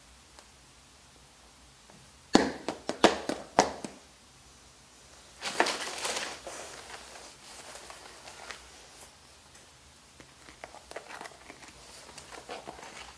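Rubber-soled sneakers tapping and scuffing on a tiled floor: a few sharp taps about two to four seconds in, a longer scuffing rustle around six seconds, then lighter taps near the end.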